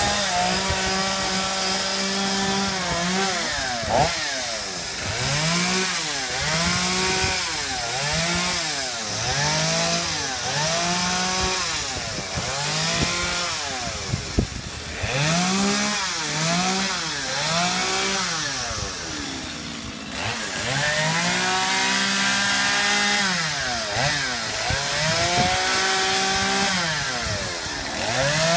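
Gasoline chainsaw carving wood, revving up and down over and over, its engine note rising and falling about once a second.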